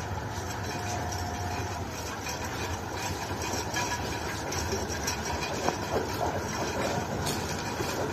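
TGM8KM diesel shunting locomotive's engine running steadily at low power as it moves a passenger coach slowly along the track: a low rumble with a few light clicks.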